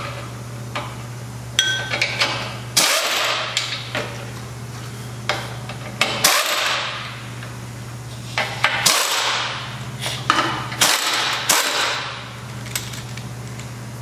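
Ratchet wrench clicking in several short bursts as it loosens the bolts holding the gearbox assembly and inspection cover, over a steady low hum.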